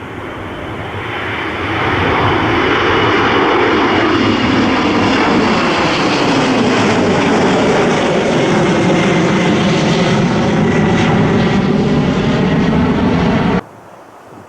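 Airliner passing close by, its engine noise swelling over the first two seconds and then holding loud, with a high tone slowly falling in pitch. It cuts off abruptly near the end.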